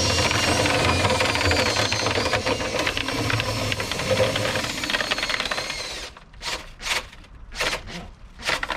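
Power drill spinning a rotary cleaning brush inside a dryer vent duct, a fast, steady mechanical rattle. It stops about six seconds in, followed by a few short knocks.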